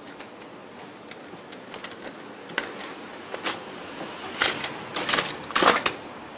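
Scattered plastic clicks and knocks from a hand working inside the open cartridge bay of an HP LaserJet P1102 laser printer, with a busier run of clatter near the end.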